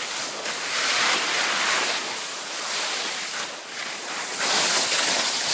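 Wind rushing over the microphone of a skier moving downhill, mixed with the hiss of skis sliding on packed snow, swelling and easing as speed changes.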